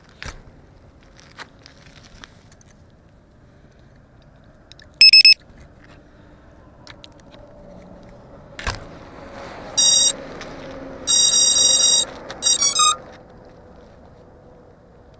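Electronic beeps from an FPV 250 quadcopter's electronics: a short beep about five seconds in, then a sharp click, a beep, a tone held about a second, and a quick run of beeps near the end. Typical of a quad's start-up and arming tones once the battery is connected.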